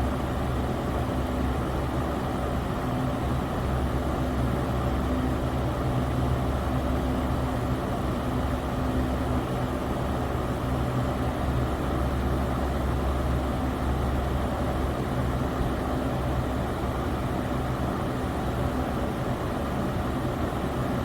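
Electric fan running steadily: an even whoosh of moving air over a low motor hum that holds the same pitch throughout.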